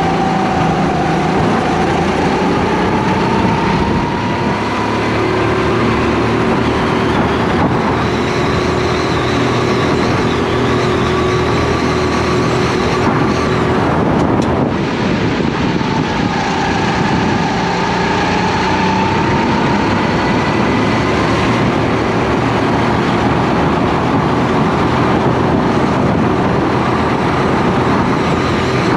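Race kart engine heard from the driver's seat, running hard through a lap. The pitch climbs as the kart accelerates out of corners and drops briefly about halfway through as the driver lifts for a bend.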